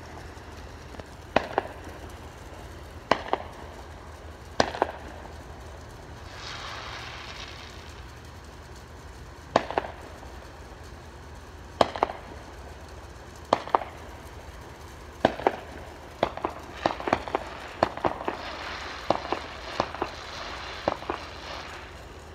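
Fireworks going off: sharp single bangs a couple of seconds apart, then quicker and bunched together in the last several seconds, with two stretches of hiss.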